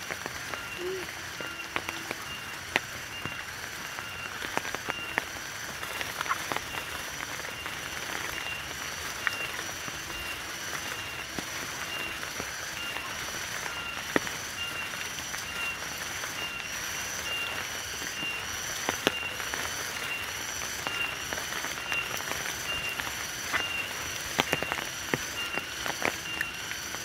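Footsteps on a muddy dirt trail, as short scattered knocks, over steady high chirping from forest wildlife. One chirp repeats about every two-thirds of a second, above a constant high pulsing tone.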